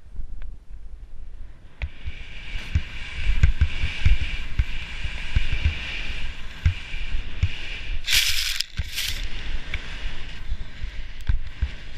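Rossignol Sushi snowboard sliding and carving through snow, the base and edge hissing and scraping, with two loud bursts of hiss about eight seconds in. Wind buffets the action camera's microphone with low thumps throughout.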